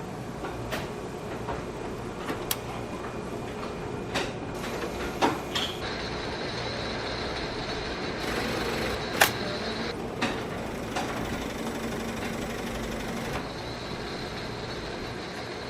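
Kato Pocket Line N-scale model steam train running on Unitrack: the small electric motor whirs steadily, with scattered sharp clicks from the wheels and track. A thin high whine joins about six seconds in and stops near the end.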